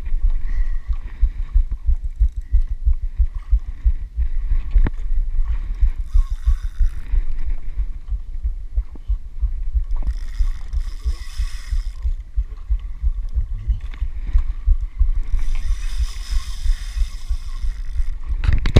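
Low, irregular thumping rumble of wind and water buffeting a body-worn camera's microphone on a small outrigger boat, with three bursts of higher hissing about six, ten and sixteen seconds in.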